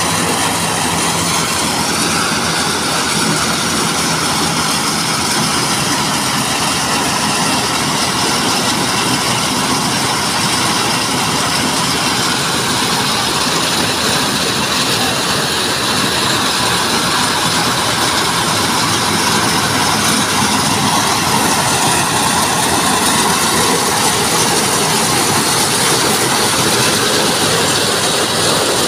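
Engine-driven corn sheller with a blower, running steadily under load: a loud, even mechanical noise that does not let up.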